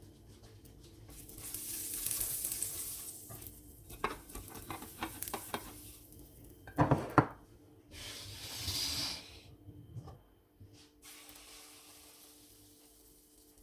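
Kitchen sounds: hissing that comes and goes in stretches of a few seconds, light clicks of a utensil on a bowl or pan, and two sharp knocks about seven seconds in.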